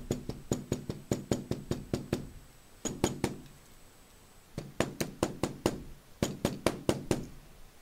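Red soft-faced mallet tapping quickly on leather laid on a poly cutting board, about six blows a second in two runs with a short pause between, pressing a glued zipper down onto the leather to bond it.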